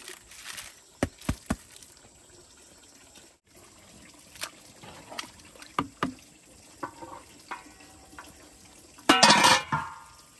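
Wooden paddle stirring corn in a large metal pot of steaming water: liquid sloshing, with a few sharp knocks of the paddle against the pot. About nine seconds in, the metal lid clatters onto the pot and rings briefly.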